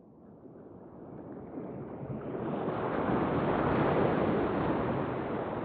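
Ocean surf: a rush of breaking-wave noise that builds over about three seconds and then slowly eases.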